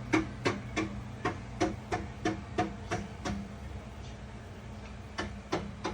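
Rapid, evenly spaced knocking, about three knocks a second. It stops a little after three seconds in and starts again near the end, over a steady low hum.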